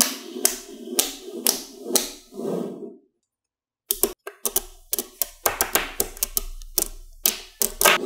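Small magnetic balls clicking and snapping together in quick, irregular taps, with a pause of about a second partway through.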